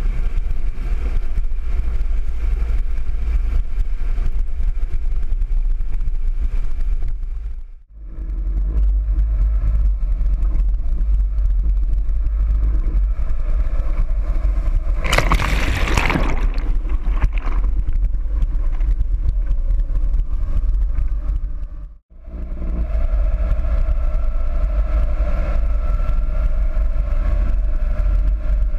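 4WD engine running as the vehicle drives through creek water, with water rushing around it; a loud rush of splashing water about halfway through. The sound drops out abruptly twice, and after the second drop a steady engine drone comes through.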